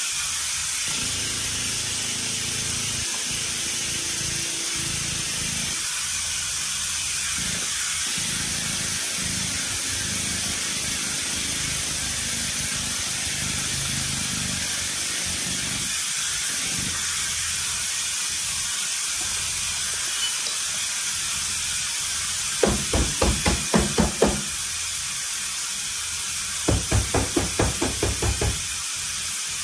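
Frame-pulling machine running with a steady hiss while it pulls on the van's unibody. About two-thirds of the way in come two runs of about half a dozen quick, sharp knocks, a couple of seconds apart.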